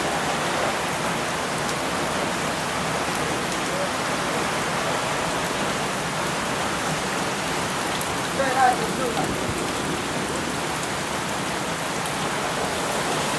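Heavy rain pouring onto shallow floodwater covering a concrete alley: a steady, unbroken hiss of splashing drops. A brief voice sounds once, about two-thirds of the way through.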